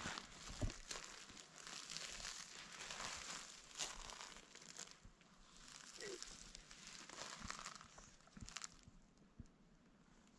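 Faint rustling and crinkling with a few soft knocks: clothing and gear handling as people shift while kneeling in dry grass.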